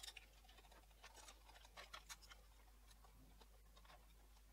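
Faint clicks and scrapes of a projector's circuit board being worked free of its connectors and lifted out of its plastic case. A cluster comes right at the start and several more between one and two and a half seconds in.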